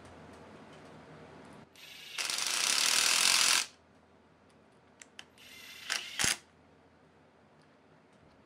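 Cordless power tool running a bolt down on the engine cover: one loud burst of about a second and a half, then a couple of short clicks and two shorter bursts ending in a sharp click about six seconds in.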